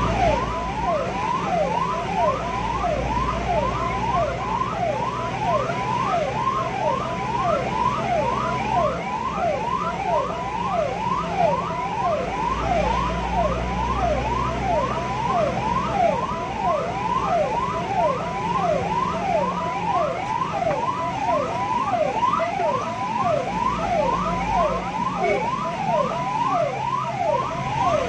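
Ambulance siren running in a fast up-and-down yelp, about two to three sweeps a second, sounding for an emergency run. The vehicle's engine and road noise rumble underneath.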